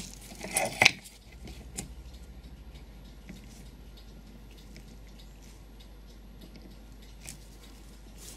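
Small metal clicks of needle-nose pliers against the brass clock movement while prising off a tiny C-clip, a few faint ticks scattered over a low steady hum.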